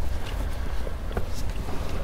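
Wind buffeting the microphone as a steady low rumble, with a few light clicks and knocks.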